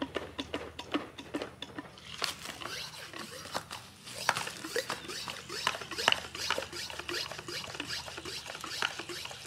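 A Smith Contractor 2-gallon hand-pump garden sprayer being pumped up to pressure: quick repeated strokes of the pump handle, about three or four a second. From about two seconds in, air hisses through the pump.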